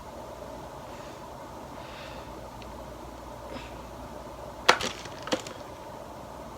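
Steady low room hum, with a sharp cluster of clicks about three-quarters of the way through and a single click about half a second later.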